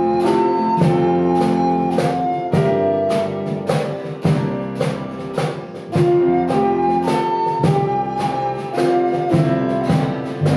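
Hymn music: instruments play a melody in sustained notes over a steady beat.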